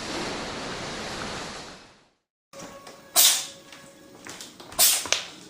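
An animal sneezing twice, two short sharp sneezes about a second and a half apart, after a steady hiss that fades out into a moment of silence.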